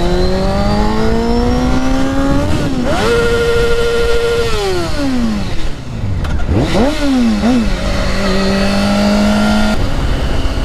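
Motorcycle engine pulling through the gears: it rises in pitch, dips at a shift about three seconds in, holds steady, then winds down around five to six seconds as the bike slows. It picks up again and settles into a steady cruise near the end, over a constant rush of wind noise.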